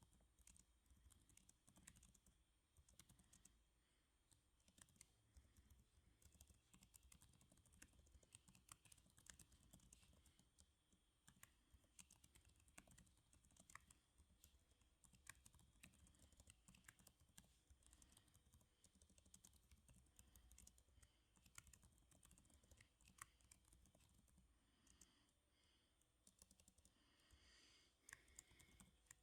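Faint, continuous typing on a computer keyboard: quick, irregular key clicks with short pauses between runs.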